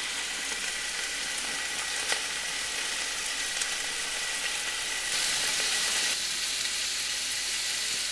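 Beef cubes browning in olive oil in a hot cast iron pot, sizzling steadily and growing a little louder for about a second just past the middle.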